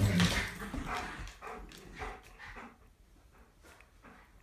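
Dogs playing on a hardwood floor: a dog's low play vocalisation right at the start, then scattered short clicks and scuffles that grow quieter.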